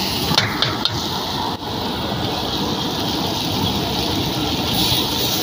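Chilli potatoes sizzling in an iron wok over a gas burner, a steady hiss, with a metal ladle scraping and knocking against the wok a couple of times in the first second.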